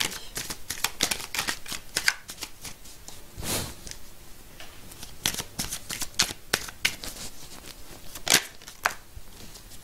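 A deck of Tarot de Marseille cards being shuffled and handled by hand: a run of quick papery flicks and snaps, with a longer rustle a few seconds in and one louder snap near the end.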